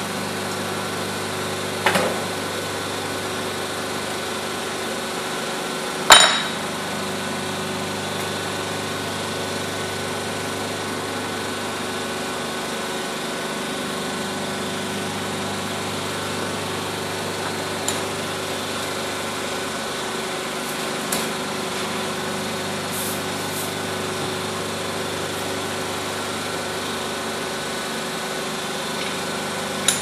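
Injection moulding machine running with a steady hum while it moulds soft rubbery grommets. A sharp bang comes about six seconds in, a smaller knock about two seconds in, and a couple of light clicks later on.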